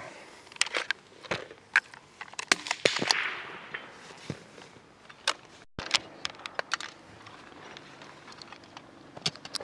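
Sharp metallic clicks and clacks of a semi-automatic .22 rifle being handled to clear a stovepipe jam. After a break about six seconds in, smaller clicks of .22 LR cartridges being handled for loading a magazine.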